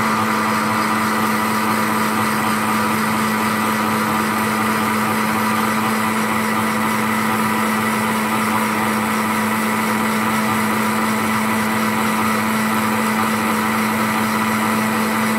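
Electric kitchen blender running at steady high speed, blending milk, pineapple and pineapple juice into a smooth liquid. The motor hums at one constant pitch throughout.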